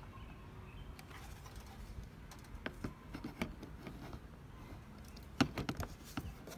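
Light plastic clicks and taps of a solar motion light fixture being pushed and slid onto its plastic sliding wall mount, with a louder run of clicks about five and a half seconds in.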